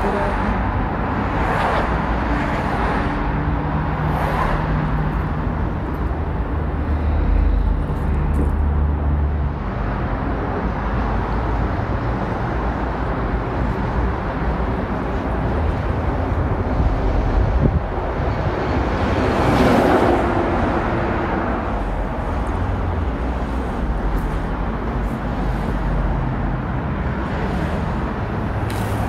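Steady road-traffic rumble, with vehicles swelling past now and then, the loudest pass about two-thirds of the way through.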